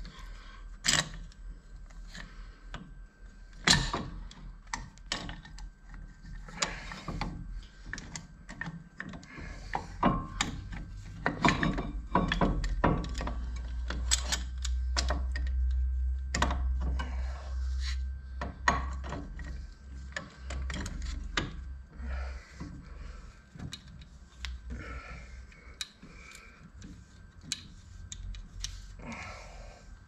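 Metal tools and brake parts clicking, knocking and scraping as a rear disc brake caliper is worked on, likely while its piston is pushed back in. A low rumble runs for about ten seconds through the middle.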